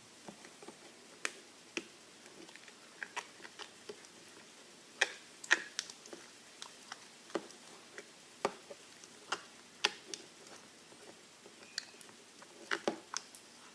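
Glue slime being stirred in a bowl as Tide activator is worked in: irregular sticky clicks and wet pops, one or two a second.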